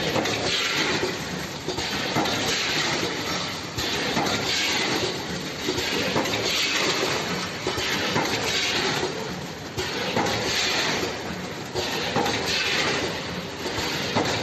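Vertical form-fill-seal snack packing machine running, a dense steady mechanical clatter with a surge that repeats about every second and a half as the machine cycles through each bag.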